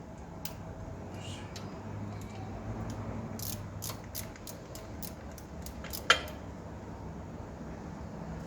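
Small clicks and handling noises, with one sharp metallic clink about six seconds in, over a faint low hum.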